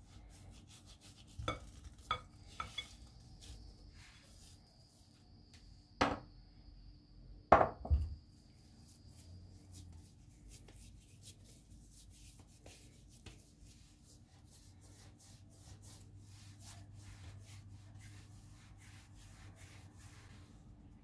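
A knife blade knocking against a glass bowl as it cuts through stiff cookie dough: a few light knocks, then two loud sharp knocks that ring briefly. After that comes soft rubbing and faint ticking of hands shaping and rolling the dough on a silicone mat.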